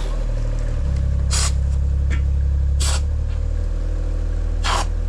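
Engine of heavy machinery running with a low, steady hum that rises under load about a second in and eases back a couple of seconds later. Four short, sharp noisy sounds stand out over it.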